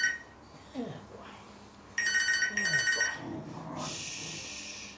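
A telephone ringing in a repeating double ring: one pair of rings about two seconds in, with the tail of the previous ring at the start. A short burst of hiss comes near the end.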